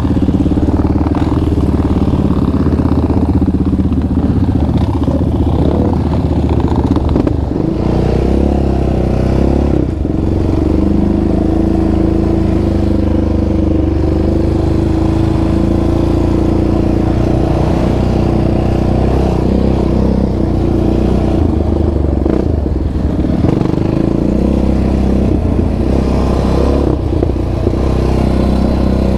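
Yamaha Raptor 700R ATV's single-cylinder four-stroke engine, fitted with a Monster aftermarket exhaust, running steadily under throttle on a dirt trail. Its pitch dips briefly a couple of times as the throttle eases.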